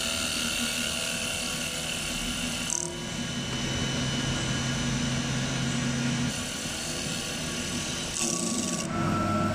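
CNC wood lathe turning a wooden spindle, its tool taking a 2 mm cut: a steady motor whine over the hiss of the cut. The motor tones change a few times as the tool moves along the workpiece.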